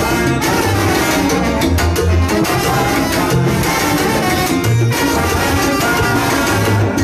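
Live salsa band playing, with singers, brass, a bass line, and bongo and cowbell among the percussion.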